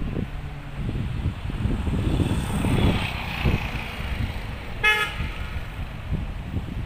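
Road traffic going past with a steady low rumble, and a single short vehicle horn toot about five seconds in.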